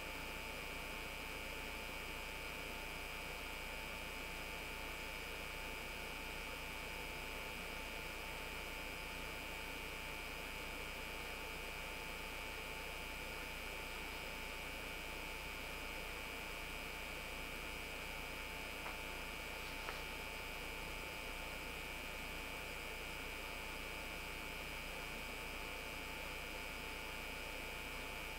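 Steady electrical hum and hiss with several constant high tones, unchanged throughout. Two faint clicks come about nineteen and twenty seconds in.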